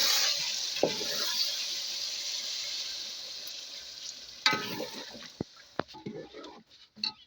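Food sizzling in a frying pan, the hiss slowly dying down, then a few clinks and knocks of a utensil or pan in the last seconds.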